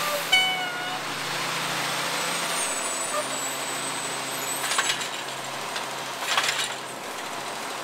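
Garbage truck engine running steadily, with a short squeal near the start and two brief bursts of noise about five and six and a half seconds in.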